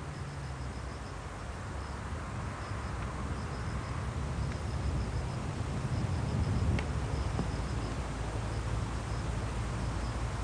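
Outdoor ambience: an insect chirps in short, high, rapid trills that repeat in groups, over a steady low rumble. A single faint click comes about seven seconds in.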